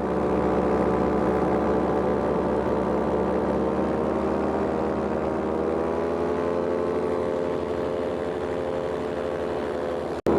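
Powered paraglider's engine and propeller running steadily in flight, the pitch easing slightly in the middle and coming back up. The sound cuts out for an instant near the end.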